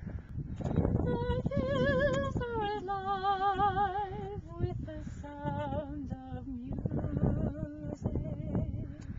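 A woman's voice singing long held notes with a wavering vibrato, starting about a second in and falling in pitch across the phrase, over a steady low rumble of wind on the microphone.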